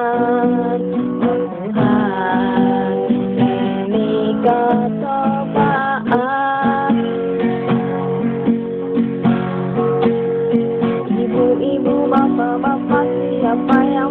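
Acoustic guitar strummed steadily, chords ringing on with a regular rhythm of strokes.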